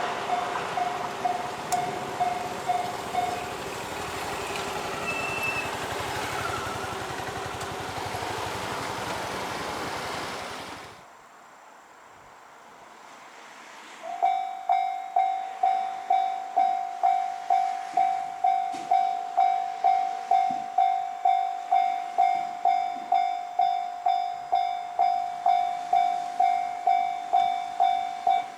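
A train running past a railway level crossing while the crossing's warning bell rings; the bell stops a few seconds in, and the train noise cuts off abruptly near the middle. After a short lull, a level crossing's warning bell starts and rings steadily at about two strikes a second.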